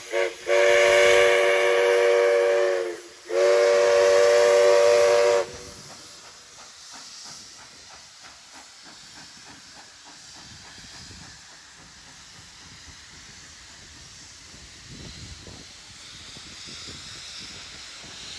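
Steam locomotive 5917, a NSW 59 class 2-8-2, sounding its whistle of several notes at once: a brief toot, then two long blasts. Its sound then drops to fainter, quick regular beats and a hiss as the train pulls away.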